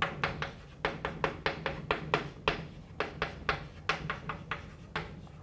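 Chalk writing on a blackboard: a quick, uneven run of sharp taps and scratches, about four to five a second, over a steady low hum.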